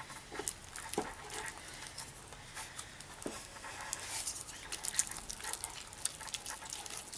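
Sticky glue-and-baking-soda slime being stirred in a bowl with a mixing tool: irregular wet, tacky crackles and clicks, with a few light taps of the tool against the bowl. The slime is partly activated by the contact solution and still sticky.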